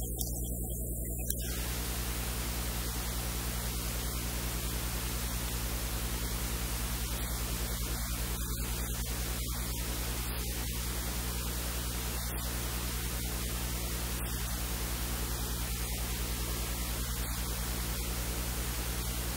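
Steady hiss over a constant low electrical hum, with no clear event on top: recording noise rather than the blender, which does not change when the jar is lifted off its base.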